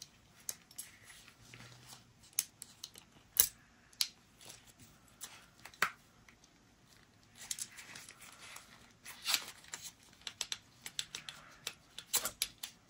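Irregular small metal clicks, taps and scrapes of a Taurus 856 revolver's cylinder and yoke being worked off the frame by hand, the sharpest clicks about three and a half and six seconds in.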